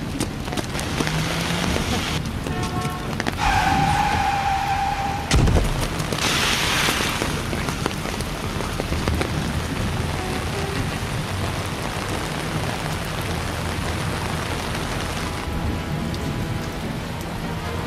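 Steady rain on a wet road, with background music. About three and a half seconds in, a single held high tone sounds for nearly two seconds and ends in a heavy thud, followed by a brief hissing rush.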